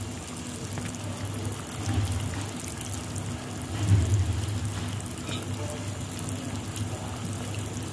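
Water at a rolling boil in a pan, bubbling steadily, with louder splashes about two and four seconds in as spoonfuls of tekwan dough are dropped in.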